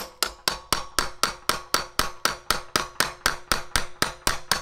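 Steel chisel scraping and chipping out the soaked, rotten balsa core of a fiberglass locker lid, in quick, regular sharp strokes about four a second.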